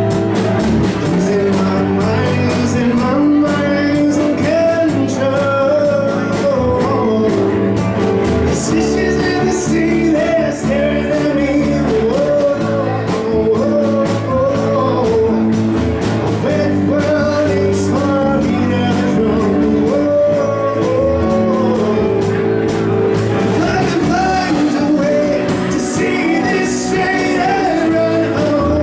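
Singer with a live band of keyboard, electric guitar, bass guitar and drum kit playing a rock song, the voice carrying the melody over steady chords and cymbal-heavy drumming.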